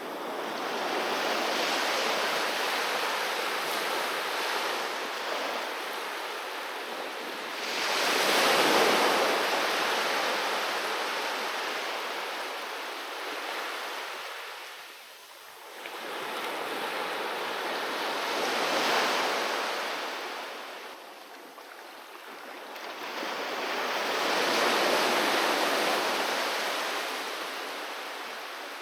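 Sea waves breaking on a beach and washing back, in four surges, one about every six to ten seconds, the loudest about nine seconds in.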